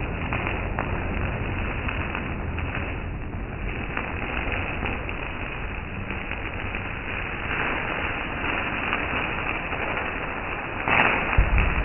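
Ground fountain firework (anar) burning, giving a steady hiss as it sprays sparks. There is a louder burst of noise about eleven seconds in.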